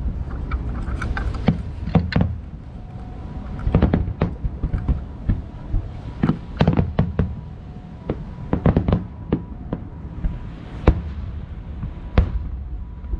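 Aerial fireworks shells bursting: irregular volleys of sharp bangs and crackling over a continuous low rumble, with two single loud bangs near the end.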